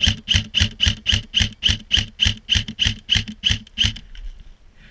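M4-style airsoft rifle firing a quick string of about fifteen single shots, roughly four a second. Each shot is a sharp crack with a ringing click, and the firing stops about four seconds in.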